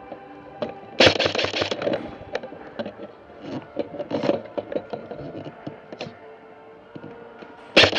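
Airsoft guns firing rapid full-auto bursts: one burst about a second in, scattered shorter shots and a cluster around four seconds, and another burst near the end.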